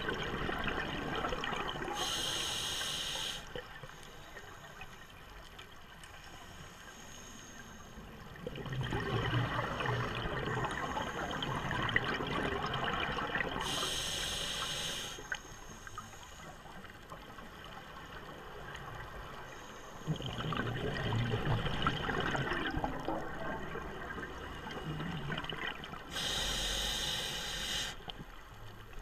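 Scuba diver breathing through a regulator underwater: a short hissing inhale about every twelve seconds, with a longer bubbling, gurgling exhale in between.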